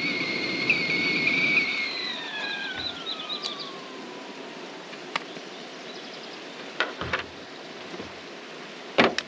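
Stainless stovetop kettle whistling at the boil, a shrill two-tone whistle that slides down in pitch and fades out over a couple of seconds. A few light clicks follow, then a sharp knock near the end.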